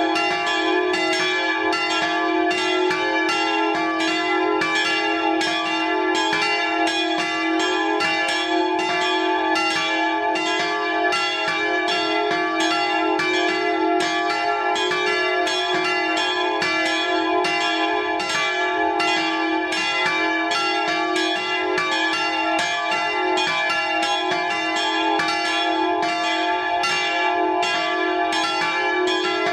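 Swinging church bells, a tuned set of three (d''–f''–g♯'') cast by the Fischer foundry of Trnava, ringing together in a steady peal of overlapping strikes with long ringing tones. They are heard close up from inside the belfry.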